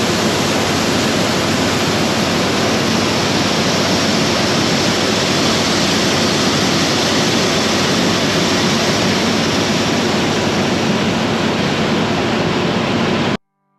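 New Holland TX62 combine harvester running, a steady loud roar that cuts off abruptly near the end.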